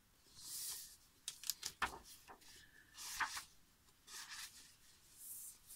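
Faint rustling and a few sharp clicks of a book being picked up and its pages handled.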